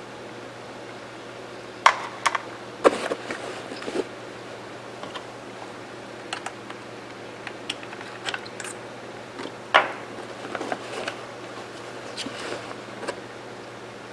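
Scattered sharp clicks and light knocks of small metal rifle parts and tools being handled during disassembly of a Mossberg 464 lever-action rifle, the loudest about two seconds in and again near ten seconds, over a faint steady hum.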